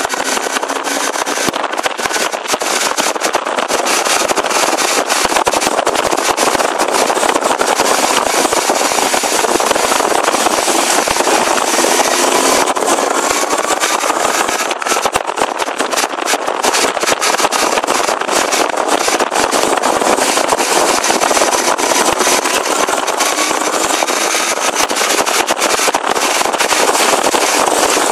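Suzuki GT550 two-stroke triple motorcycle with a sidecar running on the move, its pitch rising a few times as it accelerates, under a loud, steady rushing noise.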